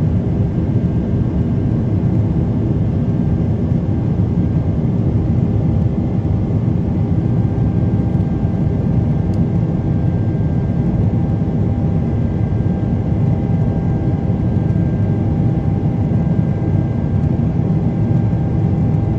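Cabin noise of a Boeing 777-300ER climbing after takeoff: its GE90-115B turbofan engines running steadily with rushing airflow, heard from a window seat by the wing as an even low rumble with a few faint steady whining tones above it.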